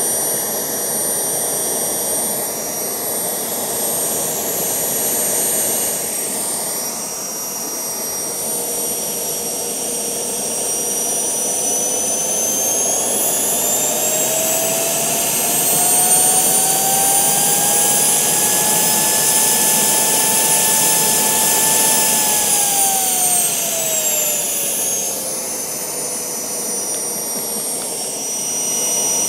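Home-built Kamps gas turbine running on kerosene: a steady rush of noise with a whine. About a third of the way in, the whine climbs as the fuel is turned up and the engine spools up. It holds high for several seconds, then falls back as the engine spools down again about three-quarters of the way through.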